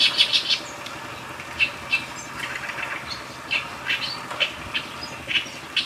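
Small birds chirping: short high chirps, some in quick runs of three or four, every second or so.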